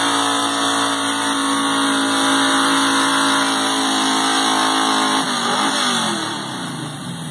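Truck-pulling truck's engine running flat out at steady high revs. About five seconds in, the pitch falls away and the level drops as the engine winds down off full throttle.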